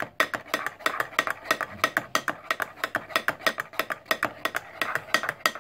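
Metal spoon stirring custard in a glass measuring jug, clinking against the glass in a quick, steady rhythm of several taps a second.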